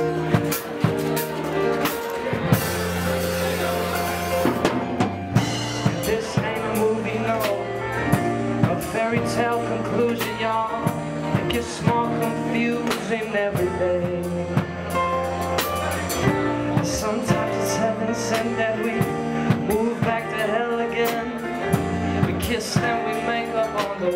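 Band music: a drum kit keeping a steady beat under sustained bass and keyboard chords.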